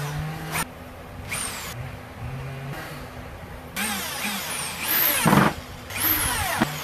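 Power drill driving screws in several short bursts, the motor speeding up and slowing down with each run.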